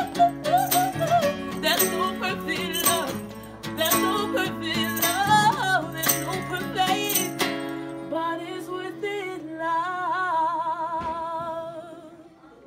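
Steel-string acoustic guitar strummed under a woman's soulful singing; the strumming stops about seven seconds in, and a last sung note is held with vibrato and fades out, closing the song.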